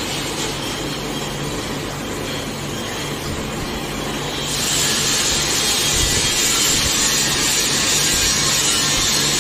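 Lathe running with a rusty iron gearbox housing spinning on its faceplate, its motor humming. About halfway through, the boring bar starts cutting into the bore and a louder, steady scraping cut joins the hum.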